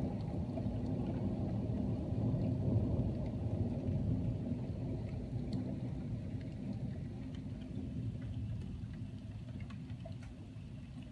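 Thunder rumbling and slowly dying away, with a few scattered raindrop ticks.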